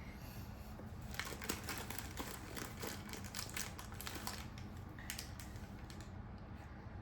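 Quick flurry of light clicks and rattles from small cubes being handled and knocked together, lasting about three seconds from a second in, with a few more clicks around five seconds in.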